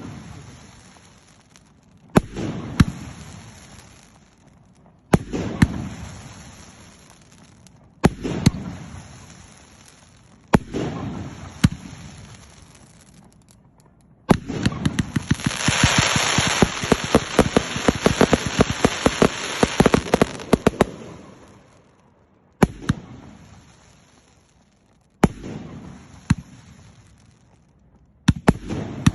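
Fireworks display: single loud shell bursts every two to three seconds, each followed by a rolling echo that fades away. About halfway through, a dense, fast volley of bangs and crackling lasts about seven seconds before single bursts resume.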